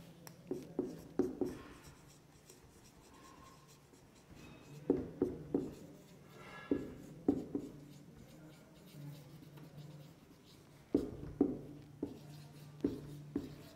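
Whiteboard marker writing on a whiteboard: groups of short, quick strokes of the felt tip on the board, with a quiet stretch of a couple of seconds near the start. A faint steady low hum runs underneath.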